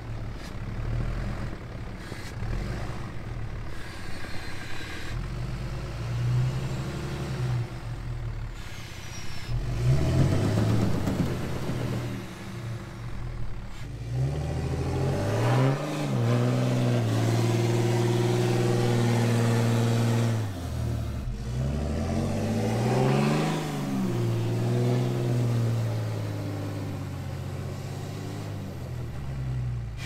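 Dodge Ram pickup's engine revving as its wheels spin in snow: it runs steadily at first, then from about ten seconds in revs up and down several times, holding high for a few seconds at a stretch.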